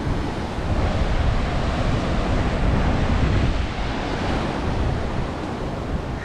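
Surf from a rough sea washing and breaking over shoreline rocks, a steady rushing noise, with wind buffeting the microphone.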